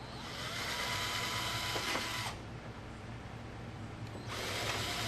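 Power drill running in two short spells, about two seconds each, with a pause between: drilling pilot holes into the plastic of the intake unit.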